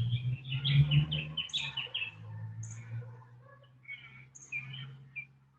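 Birds chirping: a quick run of short high notes over the first two seconds, then scattered single calls. A steady low hum sits underneath, louder for the first second or so.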